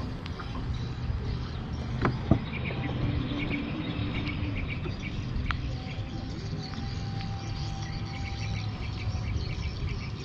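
Insects and birds chirping over a steady low rumble, with two sharp knocks about two seconds in.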